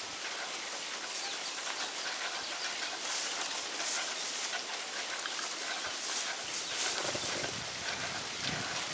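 Outdoor ambience: a steady high hiss with a few brief louder swells in the highest range, and low rumbling coming in about seven seconds in.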